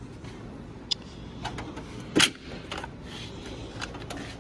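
Snap-on Epiq tool box drawers being shut and pulled open on their slides, with light clicks and one sharp knock about two seconds in as a drawer closes.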